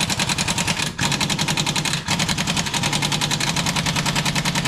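Impact wrench hammering in a fast, steady rattle on a nut, with brief breaks about one and two seconds in.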